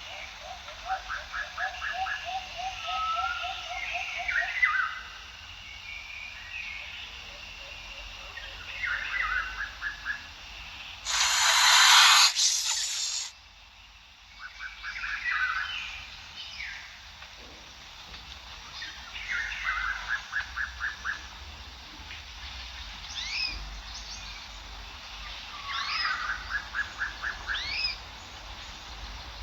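Birds calling over a quiet background: short, rapid trills of evenly spaced notes and quick rising chirps, repeated every few seconds. About eleven seconds in, a loud hiss-like rush of noise lasts about two seconds, then stops suddenly.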